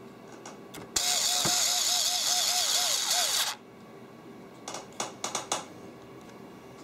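Coleman FlashCell 2.4-volt cordless screwdriver motor running for about two and a half seconds as it drives a screw into a laptop's plastic bottom shell, with a wavering whine repeating about four times a second. It is followed by a few light clicks near the end.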